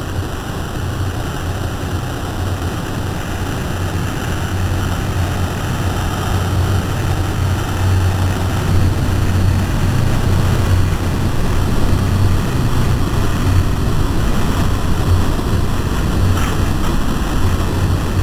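A steady, dense rumbling drone with a strong low hum and a hiss over it, slowly growing louder. It comes from a camcorder field recording that has been lightly processed on a computer.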